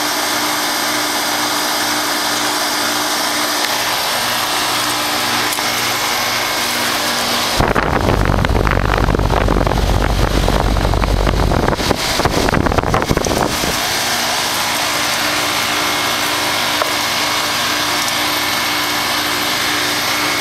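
1996 Carrier 5-ton straight-cool central air conditioner's condensing unit running steadily: fan noise with a steady hum from its Copeland scroll compressor. About eight seconds in, a louder low rumble covers it for about six seconds, then stops.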